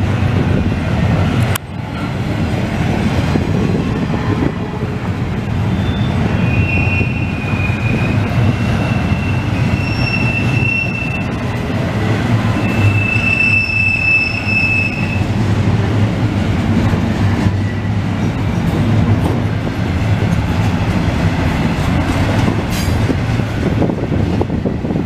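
Double-stack container train's well cars rolling past: a steady rumble of wheels on rail. High-pitched squeals come and go from about six to fifteen seconds in.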